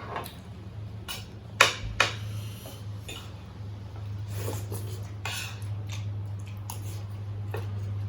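Cutlery clinking and scraping against plates during a meal, with two sharp clinks about a second and a half in and softer clicks after. A steady low hum runs underneath.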